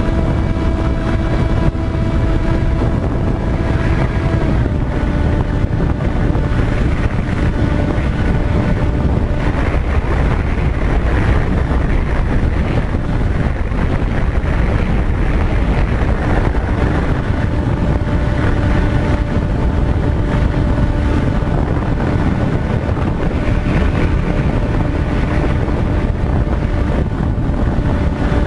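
A steady motor hum that drops slightly in pitch about four seconds in, under heavy wind rumble on the microphone.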